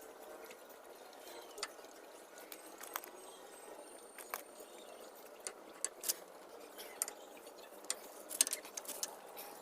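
Scattered light metallic clicks and clinks, about a dozen at irregular intervals and closer together near the end, from small metal parts or tools being handled, over a faint background hiss.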